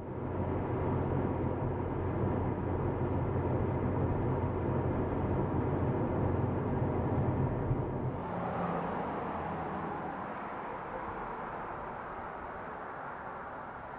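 Car driving along a road: a steady engine and road hum. About eight seconds in it cuts to a softer, even outdoor hiss that slowly fades.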